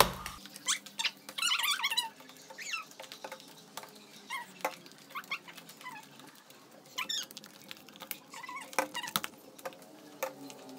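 Homemade glue-and-shaving-foam slime being squeezed, pressed and pulled by hand, making irregular wet clicks and short squelchy squeaks. The slime is still a little sticky.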